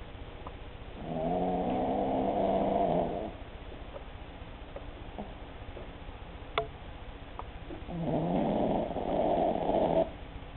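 Cavalier King Charles Spaniel snoring in her sleep: two long pitched snores about seven seconds apart, each lasting about two seconds. The snoring comes from the breed's short snout.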